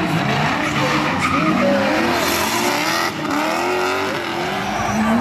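Two BMW E30 drift cars, one with a turbocharged M3 engine and one with a V8, revving hard while drifting, the engine notes rising and falling over and over above the noise of sliding tyres.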